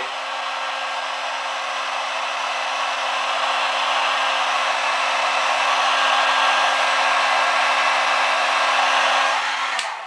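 Hand-held blow dryer with a concentrator nozzle blowing steadily: an even rush of air over a low steady hum. It cuts off near the end.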